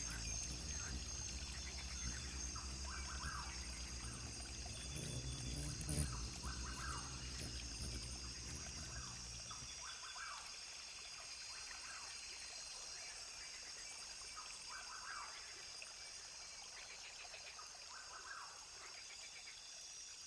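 Rainforest ambience with a brook: a steady high insect drone, a bird repeating a short call every couple of seconds, and a low rush of running water that drops away about halfway through.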